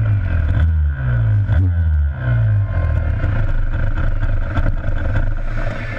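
Freestyle motocross dirt bike engine heard from a camera mounted on the bike: three quick throttle blips, the pitch dropping away after each, then a steadier low running sound from about two and a half seconds in.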